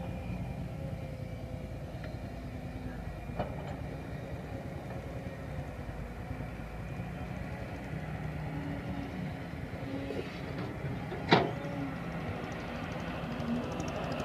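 An engine running steadily with a low, evenly pulsing rumble. There is one sharp knock about eleven seconds in and a fainter click a few seconds in.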